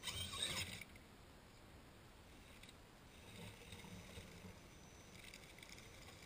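Radio-controlled scale rock crawler's tyres crunching and scraping over dirt, dead leaves and stones close by. The sound is loudest in the first second, then fainter and patchy.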